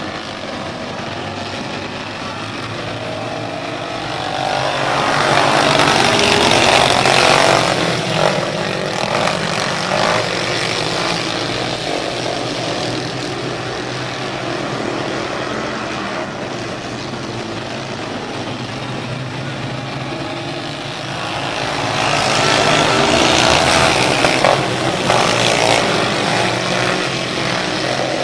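A field of dirt-track race cars running laps, their engines a steady drone that swells loudly twice as the pack passes close, about four seconds in and again a little past twenty seconds.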